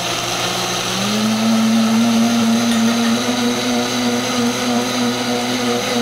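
Vitamix blender running as it blends a smoothie. Its motor speed is turned up about a second in, where the pitch steps up, and it then runs steadily at the higher speed.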